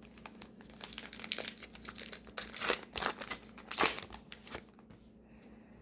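Foil trading-card pack wrapper crinkling and tearing as it is ripped open, a run of sharp crackles and rustles that stops about three-quarters of the way through.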